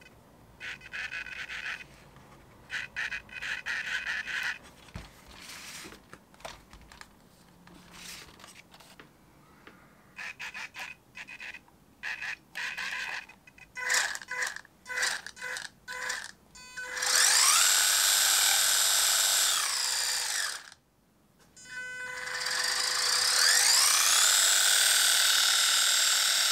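WLtoys 184011's 390 brushed electric motor and gear drivetrain, run with the wheels off the ground: a string of short throttle blips, then two long full-throttle runs whose whine rises in pitch, holds, and falls away as the throttle is released.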